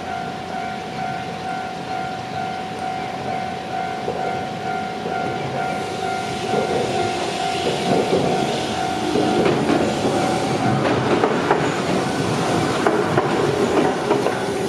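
Level crossing alarm ringing with a steady repeating tone, while a Shizuoka Railway electric train approaches from about six seconds in and passes over the crossing, growing louder, its wheels clacking over the rail joints.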